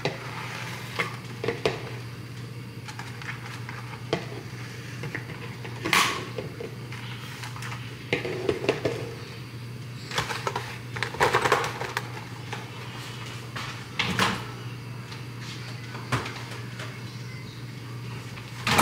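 Kitchen handling noises: eggs being taken from a plastic egg carton, with crinkling, clicks and scattered knocks, over a steady low hum.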